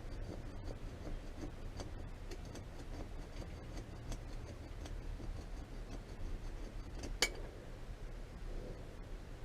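Hand filing with a round file on the motorcycle's engine case: faint, irregular rasping strokes and light ticks, with one sharp click about seven seconds in.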